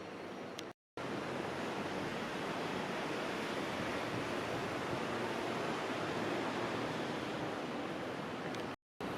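Steady rushing background noise, with no distinct events. It is broken by two brief total silences at edits, one about a second in and one near the end.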